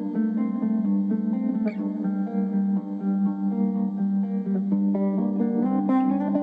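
Background guitar music: quick plucked notes over a steady low note.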